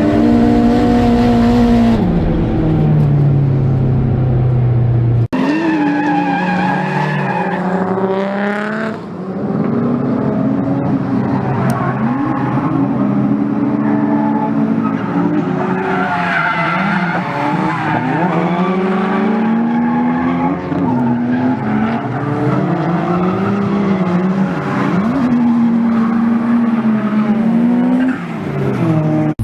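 Turbocharged 1JZ-GTE straight-six in a Lexus SC300 revving up and down while drifting, with tyres skidding and squealing. The sound breaks off abruptly about five seconds in and carries on with the engine rising and falling in pitch.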